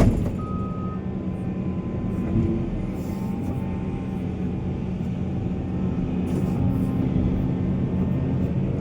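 Heavy diesel mining machinery running steadily, with one reversing-alarm beep just after the start.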